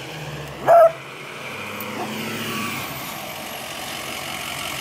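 A beagle barks once, about a second in, over the steady running of a pickup truck's engine.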